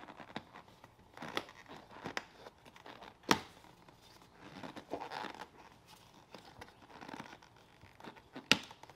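Rustling and scraping of a seat cover's material being pulled and worked by hand over a truck seat back, broken by several sharp clicks as plastic clips and brackets are fastened. The loudest click comes about a third of the way in.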